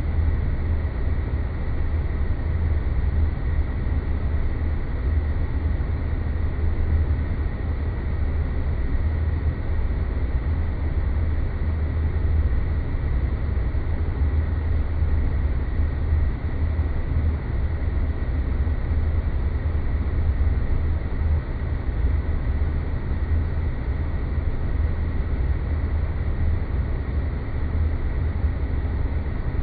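Space-planet ambience sound effect: a steady deep rumbling drone under a wash of hiss, with a faint high steady tone above it.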